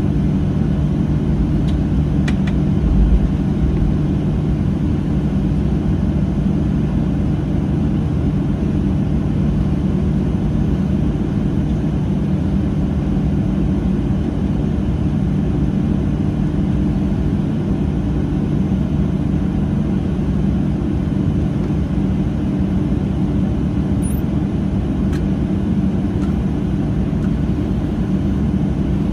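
Cabin noise of a Boeing 737-700 taxiing after landing: its CFM56-7B turbofans idling as a steady hum with a few even low tones. A brief low thump about three seconds in.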